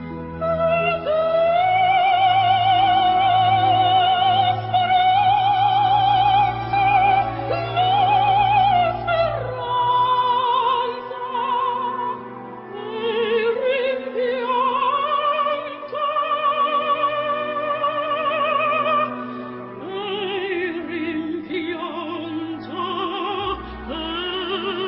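Classical music: an operatic voice singing long held notes with a wide vibrato over accompaniment, changing pitch every few seconds.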